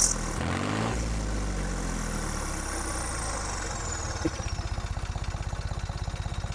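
Tractor diesel engine given a quick rev that falls back over about two seconds, then idling with a steady, even beat of firing pulses at the silencer.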